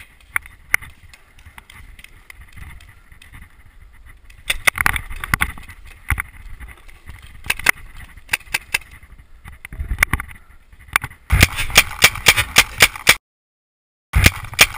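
Scattered sharp pops of paintball markers firing, growing into a fast clatter of pops and knocks about eleven seconds in. The sound then drops out completely for about a second.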